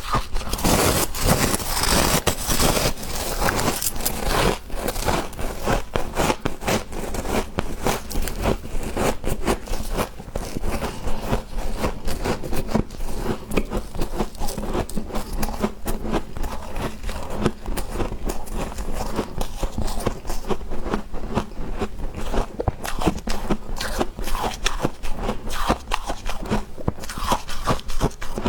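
Freezer frost being scraped and crunched up close, a dense, continuous run of crisp crunches and scrapes.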